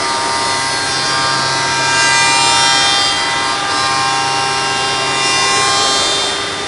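5-axis CNC machining centre spindle routing solid wood: a high, many-toned cutting whine over a rushing noise. It comes in at once, swells twice and fades out near the end.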